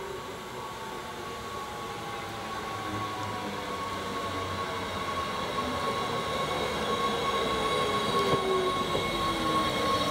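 NS Sprinter Lighttrain (SLT) electric multiple unit pulling into the platform, growing louder as it nears. Its electric drive whines in several tones that glide slowly down in pitch as the train slows, over a steady high hum.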